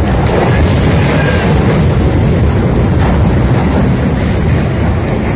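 Loud, steady low rumble of the MSC Opera cruise ship bearing down on the quay out of control, mixed with wind buffeting the phone's microphone.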